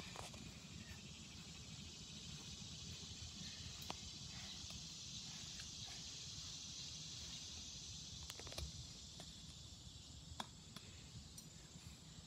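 Steady high-pitched drone of an outdoor insect chorus over quiet outdoor background, swelling slightly in the middle and easing near the end. A few faint clicks and taps come through it.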